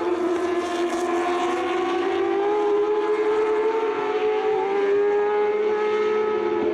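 Several Moto2 racing motorcycles with 600 cc Honda inline-four engines running hard past the track, their overlapping engine notes rising and falling gently as they go through the corners.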